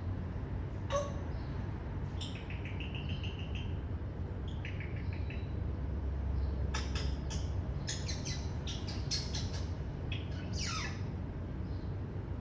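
African grey parrot making a string of short chirps and clicks, including a quick run of repeated notes, with a falling whistle near the end.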